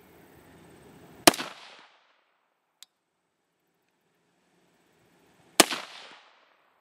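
Two rifle shots from a 5.56/.223 AR-15 with a 20-inch match barrel, about four seconds apart. Each is a sharp crack with a short echo that dies away.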